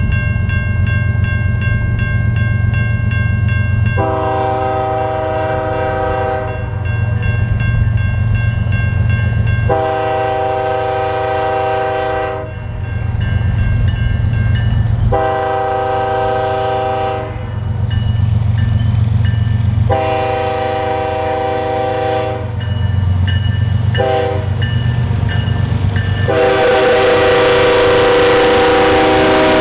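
Air horn of an approaching Canadian Pacific GE ES44AC locomotive sounding a series of long blasts for a road crossing, with a short blast near the end and then a long blast as the locomotive comes alongside. Under it runs the low rumble of the diesel engines, and the rush of the passing train rises near the end.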